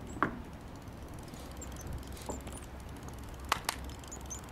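Outdoor seaside ambience: a steady low rumble with faint high bird chirps and a short call just after the start. Two sharp clicks close together come about a second before the end.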